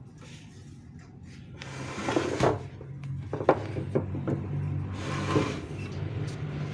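Knocks, clatter and brief scraping from handling the cup sealer's metal frame and parts, over a steady low hum.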